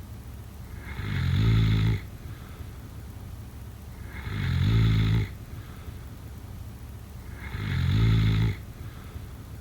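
Snoring: three snores about three seconds apart. Each swells over about a second and cuts off abruptly.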